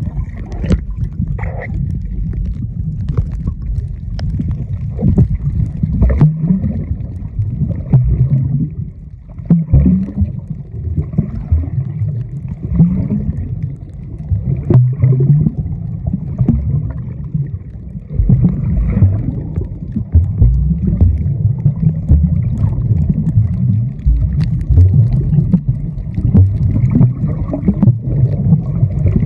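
Muffled underwater sound of water churning past a moving underwater camera's microphone: a loud, uneven low rumble with scattered faint clicks.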